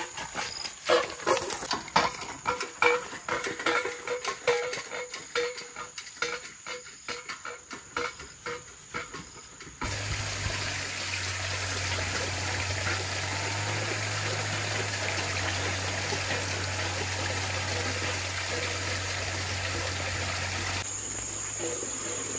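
Insects chirping in rural vegetation. Irregular clicks and rustles come first; about ten seconds in, a steady rushing noise starts abruptly and lasts about eleven seconds. Near the end it gives way to a steady high insect whine.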